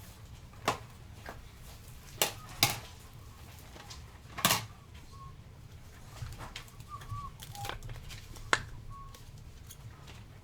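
Trading card packs and cards being handled on a table: about five sharp clicks and snaps, the loudest one near the middle, over a steady low hum, with a few faint short chirps late on.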